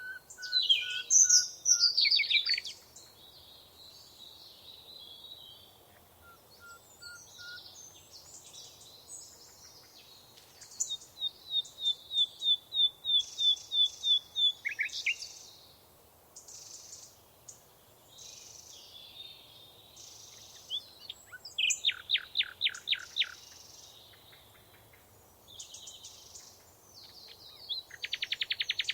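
Several songbirds singing and calling, with a mix of different songs: a run of evenly repeated high notes lasting about four seconds near the middle, a short burst of fast descending notes later, and a very rapid trill near the end.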